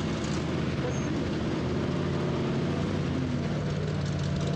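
Chevrolet K5 Blazer's engine running steadily while the truck sits stuck in deep mud.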